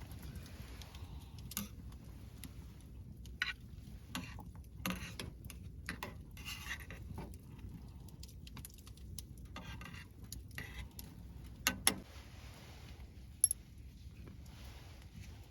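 Scattered light clicks and clinks with brief rustles, over a steady low rumble. A few sharper clicks come near the end.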